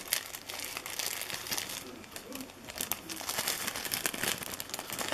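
Thin clear plastic bag crinkling and rustling in the hands as it is pulled off a phone wall charger, with many small irregular crackles throughout.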